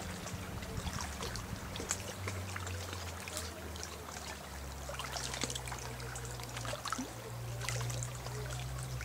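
Riverside outdoor sound: a low, steady motor drone that grows louder about halfway through, with many short, scattered high chirps and ticks over it.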